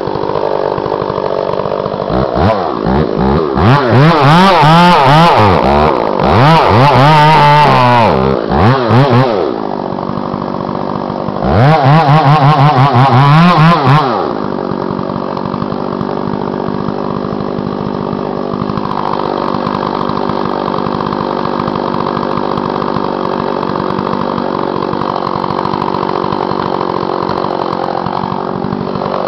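Chainsaw idling, then revved hard in two long stretches of rising and falling engine pitch as it cuts into the poplar's trunk, the first lasting about seven seconds and the second a couple of seconds; after that it settles back to a steady idle.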